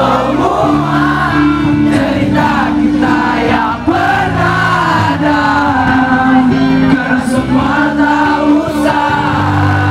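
Live band music: held low chords under several voices singing a slow melody together.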